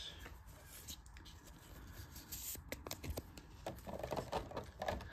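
Faint scrapes and clicks of trading cards being handled against a clear plastic box insert.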